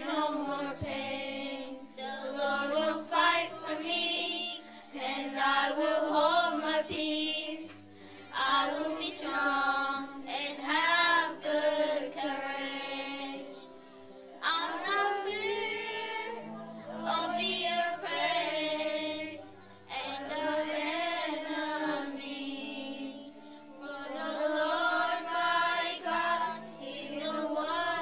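A group of voices, children's among them, singing a song in phrases with short breaks between them, over steady low accompanying notes.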